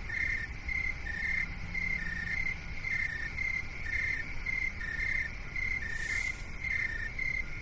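Tinnitus-masking sound track: short high chirping tones repeating evenly and alternating between two close pitches, over a steady low rumbling noise. A brief hiss sounds about six seconds in.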